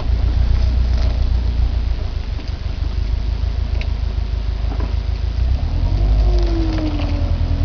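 2009 Subaru Impreza WRX STI running, a steady low rumble with a few sharp clicks. Near the end a brief tone slides down in pitch.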